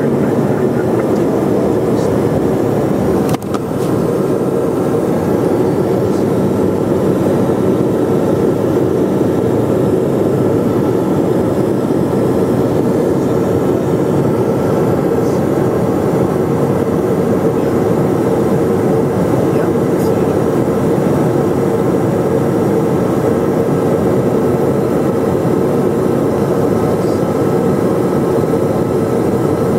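Steady cabin noise inside an Eclipse 500 very light jet in flight: airflow over the airframe and the hum of its twin Pratt & Whitney Canada PW610F turbofans. About three and a half seconds in there is a single brief click.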